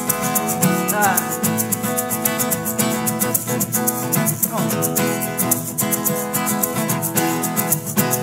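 Acoustic guitar strummed in a steady rhythm with a shaker keeping time at an even pulse. A sung "yeah" comes about a second in, then the guitar plays on without vocals.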